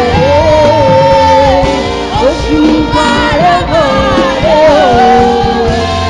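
Music with a voice singing long, held notes over a steady backing.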